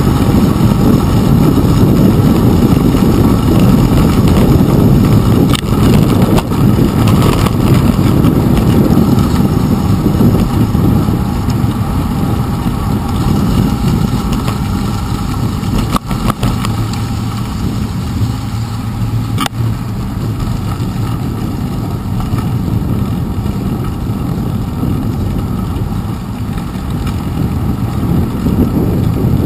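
Steady low rumble of wind and rolling tyres picked up by a handlebar-mounted action camera on a bicycle riding a wet paved path, with a few sharp knocks from bumps or handlebar rattle.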